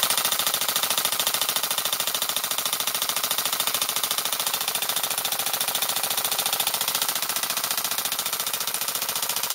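Gas-blowback airsoft G36 running on an external CO2 line, firing full-auto in one long unbroken burst: a fast, steady rattle of shots that cuts off suddenly near the end. It is loud.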